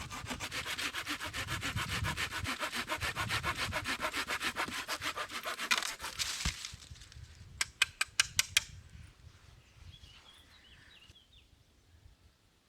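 Wood being sawn by hand in fast, even rasping strokes for about six seconds, then a quick run of about six sharp clicks. After that it fades to faint high chirps.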